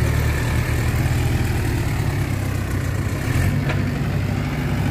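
Mahindra tractor diesel engines, a Yuvo 585 DI 4WD and a 265, running steadily with a low even pulsing throb while hitched together by a tow strap.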